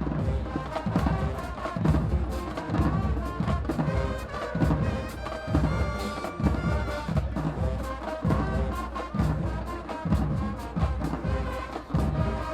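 High school marching band playing: a brass section of trumpets and trombones holding and moving through chords over a steady, driving drumline beat.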